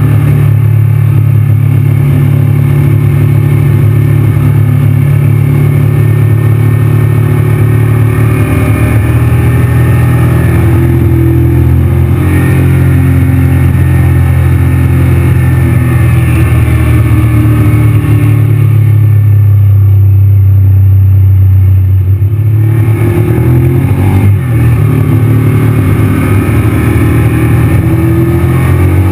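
Honda VTR1000 V-twin engine pulling steadily at mid revs while the motorcycle is ridden, heard from the rider's position. The engine note shifts slightly in pitch and dips briefly once, near the end.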